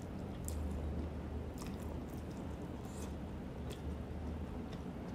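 Close-up mouth sounds of someone chewing rice vermicelli noodles, with a few soft, short slurps and wet clicks, over a steady low hum.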